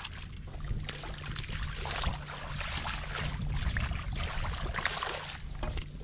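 Hands sloshing and splashing in shallow muddy water, with irregular wet splashes, as the mud is groped through by hand for fish.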